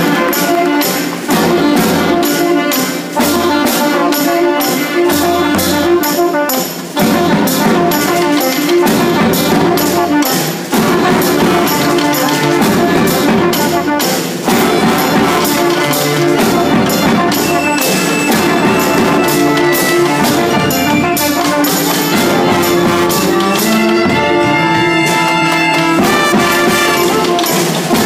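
Live brass band music: trumpets and trombones playing together over drums with a steady beat, an instrumental passage without singing.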